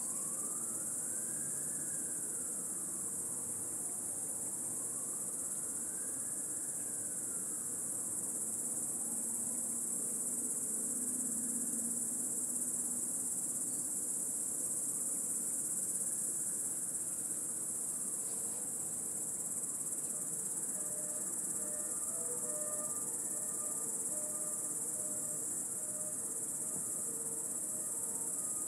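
A dense chorus of cicadas singing in one steady, unbroken high-pitched shrill.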